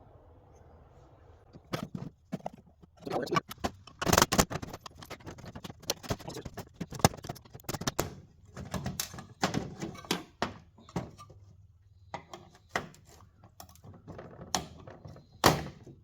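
Irregular clinks, clatter and knocks of metal parts being handled and worked at, as a power board is tugged and probed to free it from a radar display's chassis. The sharpest knocks come about four seconds in and near the end.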